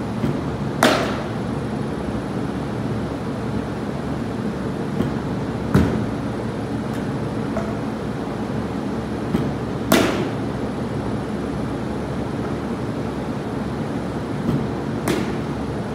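Four sharp cracks about five seconds apart, from baseball practice with pitched balls being batted, over a steady machine hum.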